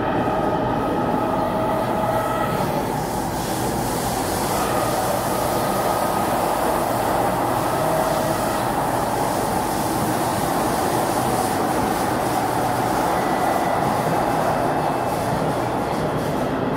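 SMRT C751B metro train running at speed, heard inside the passenger car: a steady rumble of wheels and running gear, with faint high whines that come and go.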